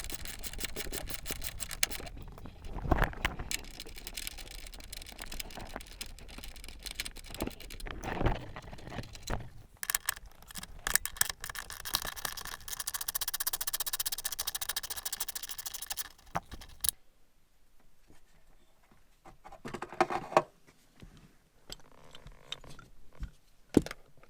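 Hand work on a car's seatbelt mounting as the bolts are undone and the old seatbelt is taken out. It starts with a quick run of rapid, even clicks like a ratchet. Then come rubbing and scraping, a few sharp knocks and a hissing stretch, and the last third is quieter with scattered knocks.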